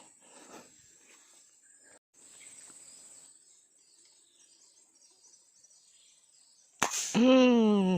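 Steady high-pitched buzz of insects in the forest with faint rustling. Near the end a man calls out a long drawn-out 'yo', loud and falling in pitch.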